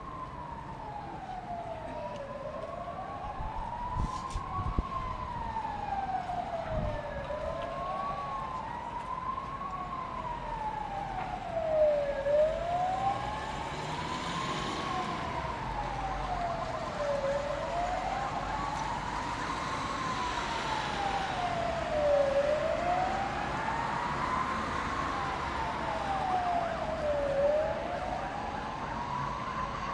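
Distant emergency-vehicle sirens on a slow wail, the pitch rising and falling about every five seconds, with a second, fainter siren wailing out of step with the first.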